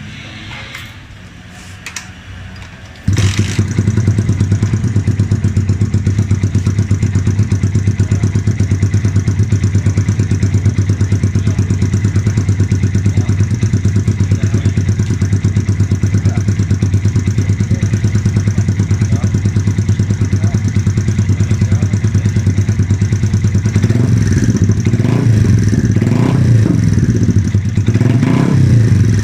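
Yamaha Vixion 150 (FZ150) single-cylinder engine through an aftermarket SC Project M1 exhaust, starting up about three seconds in and then idling with a loud, deep, even pulse. Near the end the idle turns more uneven, with a few light throttle blips.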